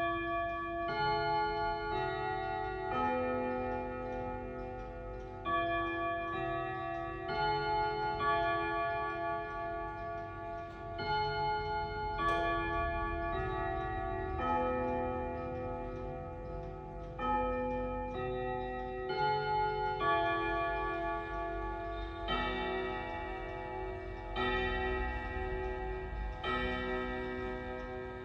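Chime clock playing a slow chime melody, a new note or chord struck about every second or two, each ringing on under the next.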